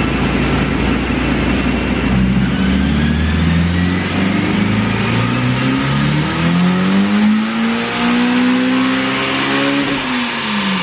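Turbocharged Honda S2000 four-cylinder engine making a pull on a chassis dyno, with a high-flow catalytic converter in the exhaust. It runs low for about two seconds, then revs climb steadily under load, with a thin whine rising above it. Near the end the pitch drops as the throttle is closed.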